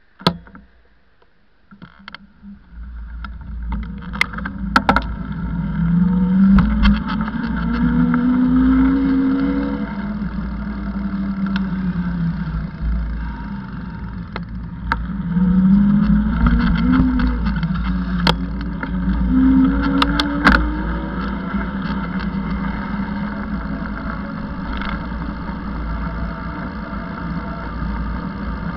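Ride noise from a moving camera on a vehicle travelling along a path: a steady low rumble with road and wind noise, plus a motor hum that rises in pitch twice, and scattered knocks from bumps. It begins almost quiet with a sharp click, and the ride noise builds from about two seconds in.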